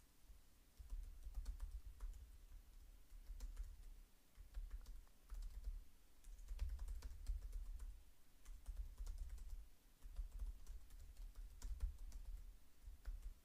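Faint computer keyboard typing: runs of quick keystroke clicks in bursts with short pauses, with a low dull thudding under each burst.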